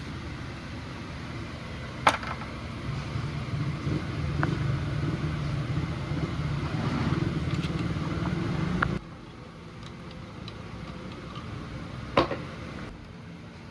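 Motorcycle engine running with a steady low rumble that gets louder over several seconds, then cuts off abruptly about nine seconds in, leaving a quieter background. Two sharp clicks, about two and twelve seconds in.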